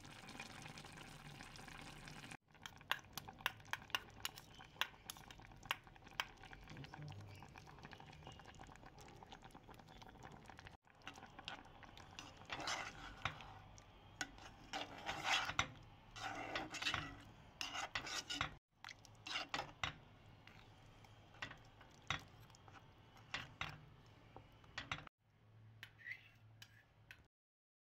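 A metal spoon stirring tomato paste into a pot of beef stew, with repeated clinks and scrapes against the pot over the faint bubbling of the simmering stew.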